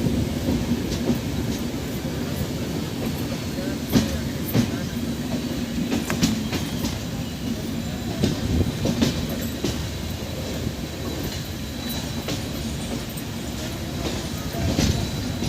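Indian Railways express train rolling past: a steady rumble of coaches, with irregular sharp clacks of wheels over rail joints.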